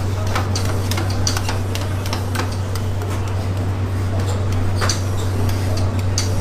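Metal spatulas clicking and tapping irregularly on a rolled ice cream cold plate, over a steady low hum.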